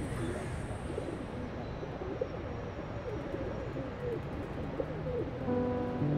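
Pigeons cooing, a series of low wavering calls over a steady background hum. Soft music comes in near the end.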